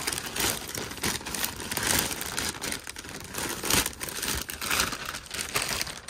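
Plastic mailer bag crinkling and crackling irregularly as a pillow is pulled out of it.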